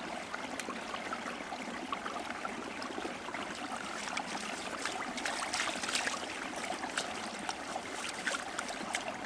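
Small stream flowing and trickling steadily, with many small clicks and splashes of water.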